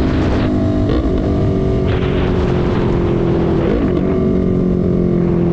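Yamaha YZF-R3's parallel-twin engine running while riding along, with its pitch dipping and recovering briefly twice, about a second in and near four seconds. Rushing wind noise comes and goes over the engine.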